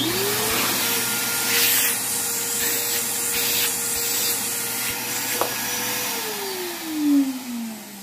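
Porter-Cable 5-gallon wet/dry shop vac switched on: the motor spins up within half a second to a steady whine over rushing air. About six seconds in it is switched off and winds down, its pitch falling steadily.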